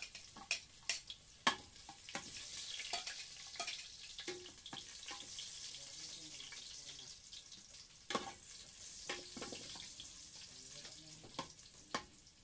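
Chopped garlic sizzling as it fries in hot cooking oil in a pot, with a spoon clinking and scraping against the pot as it is stirred every so often.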